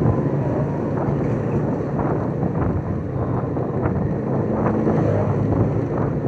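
Wind buffeting the microphone of a phone held by a motorbike rider in motion, over the steady running of the motorbike and the traffic around it.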